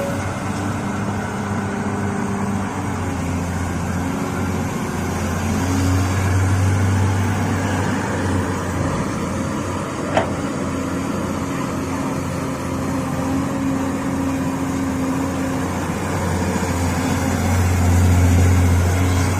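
Heavy diesel engine of an excavator-type machine running steadily with a low hum, swelling louder twice, and a single short click about halfway through.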